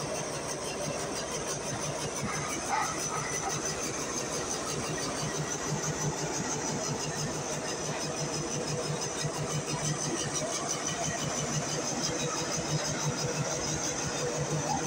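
Steady machinery noise of an automatic hydraulic concrete hollow block machine at work, powered by a diesel generator running alongside it: an even, pulsing low hum under a constant hiss.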